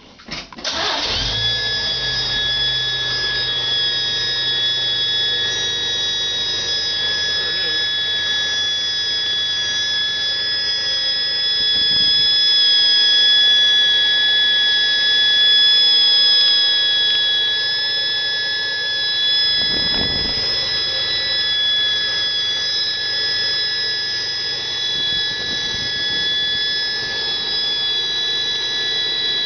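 Chevrolet 260 inline-six engine running with a steady, high-pitched whistle from a vacuum leak. Both come in about a second in and hold steady throughout.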